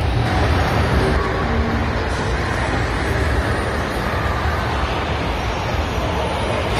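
Steady low rumble and hiss of background noise in a large indoor hall, with no single clear source standing out.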